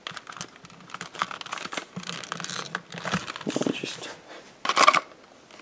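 Small cardboard puzzle-cube box being handled and torn open: scattered crinkling, scraping and tearing with light clicks, and a louder rustle near the end.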